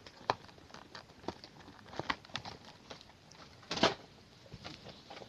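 Plastic fidget toys being handled and picked up: scattered light clicks, taps and rustles, with one louder knock nearly four seconds in.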